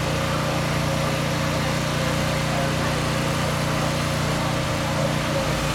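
An engine or motor running steadily with a constant hum.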